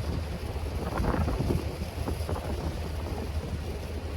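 River ferry's engine running with a low, steady rumble, under wind buffeting the microphone on the open deck.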